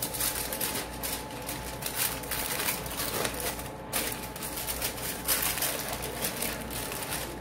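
Aluminium foil crinkling and crackling in irregular bursts as it is folded and pressed by hand around a rolled wrap.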